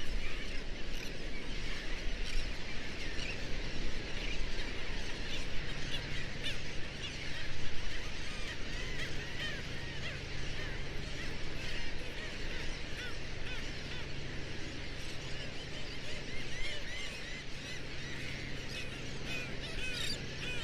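Dense nesting colony of black skimmers calling, many short overlapping calls blending into a continuous chorus.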